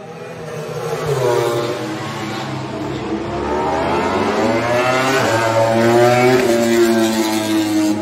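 Suzuki GSX-RR MotoGP bike's inline-four engine at racing speed, its revs rising and falling several times as the rider opens and closes the throttle through the corners. It grows louder toward the end as the bike comes closer.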